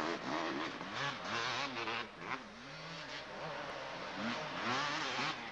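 Motocross bikes racing down the track, their engines revving up and falling back again and again as the riders work the throttle and shift gears. More than one bike is heard, and the note dips for a moment about two seconds in.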